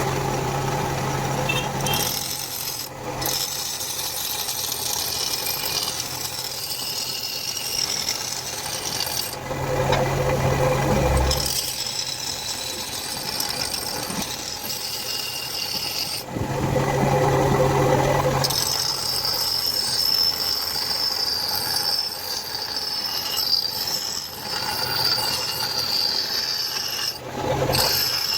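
Steel being abraded by a metalworking tool while the spearhead is shaped: a continuous scraping noise. A low hum swells and fades back several times.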